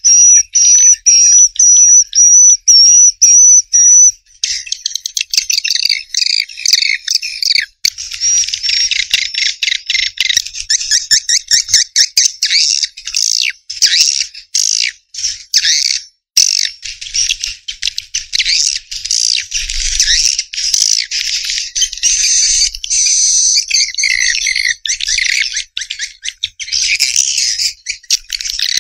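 Swiftlet lure call: the dense, rapid twittering and clicking chatter of edible-nest swiftlets, played back to attract swiftlets. A steady, high warbling tone runs through the first four seconds, then gives way to fast chirps and clicks with brief breaks.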